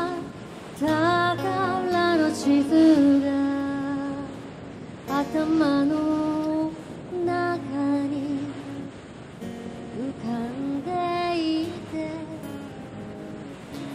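Outro music: a woman's singing voice in slow phrases with vibrato, each a second or two long with short pauses between them, over light accompaniment.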